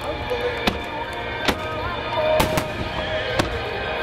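Aerial fireworks shells bursting: several sharp reports about a second apart, over music playing throughout.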